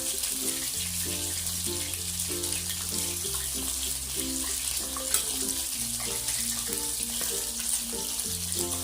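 Coated prawns frying in hot oil with a steady sizzle, under background music with a slow bass line and repeating chords.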